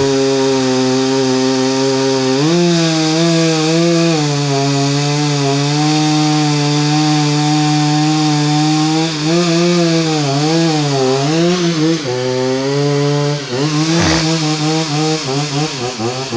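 Chainsaw running at high revs, cutting into a tree trunk. Its pitch holds steady for long stretches, then dips and wavers several times in the second half as the chain loads up in the wood.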